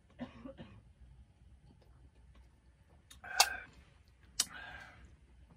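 A person coughing twice, the first cough louder, with a sharp click between them.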